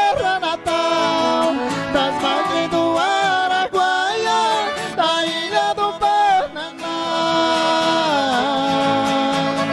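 Sertanejo raiz music: male voices singing long held notes in harmony that glide up and down, over acoustic guitars and a Scandalli piano accordion.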